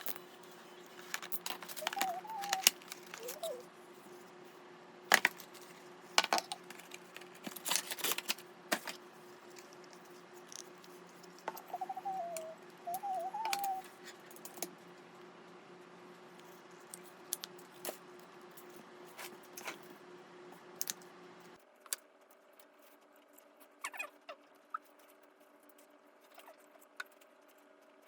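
Scattered clicks, taps and light clatter of small hard objects being handled, over a steady background hum, with two brief wavering chirps. About two-thirds of the way through the hum changes and the rest is quieter, with only a few taps.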